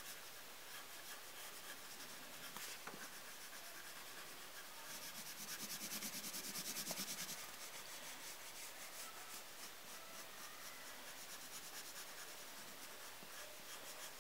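Lyra coloured pencil shading on paper: the pencil lead rubbing across the sheet in rapid back-and-forth strokes, faint and steady, a little louder for a couple of seconds around the middle.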